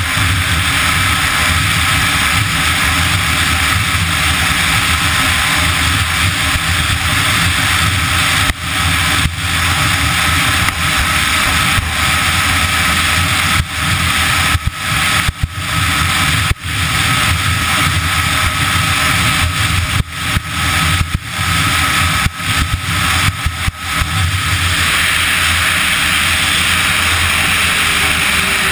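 Polaris Fusion 600 snowmobile's two-stroke engine running at speed under steady throttle, heard from the machine itself. Its sound dips sharply for short moments several times through the middle.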